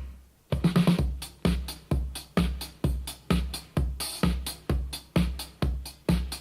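Electronic dance music with a heavy kick drum hitting about twice a second, coming in about half a second in after a brief drop.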